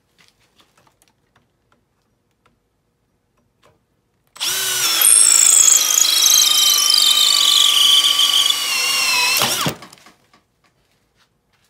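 Makita XPH07 brushless cordless hammer drill cutting a hole through 3/4-inch plywood with a hole saw, cutting through without stalling. A loud motor whine with a high cutting screech starts about four seconds in, sags slightly in pitch under load for about five seconds, then spins down and stops. A few light handling clicks come before it.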